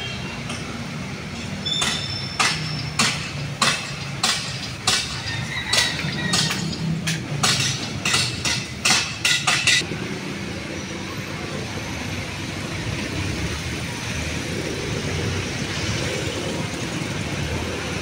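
Metal being struck again and again: about fifteen sharp, ringing clanks, roughly two a second, that stop about ten seconds in. A steady hum of traffic runs underneath.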